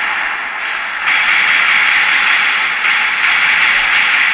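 Steady, loud hiss with no clear pitch, stepping up louder about a second in.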